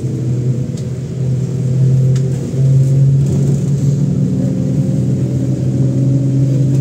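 MAZ-107 city bus driving, its engine and drivetrain making a steady low drone heard inside the passenger cabin. The drone grows a little louder about two seconds in.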